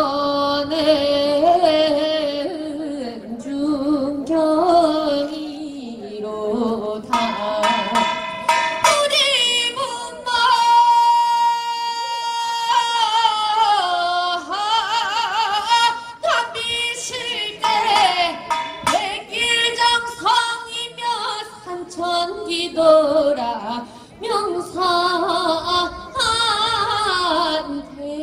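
Music with a woman singing a wavering, ornamented melody, holding one long note near the middle.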